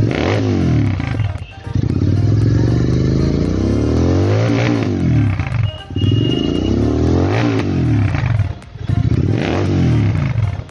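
Royal Enfield Interceptor 650 parallel-twin engine revved up and down several times through an aftermarket exhaust with no dB killer fitted, each blip rising and then falling in pitch.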